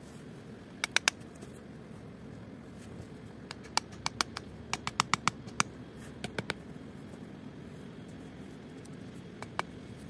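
Scattered sharp clicks and ticks, a pair about a second in and a quick cluster between about three and a half and six seconds, over a steady low background noise.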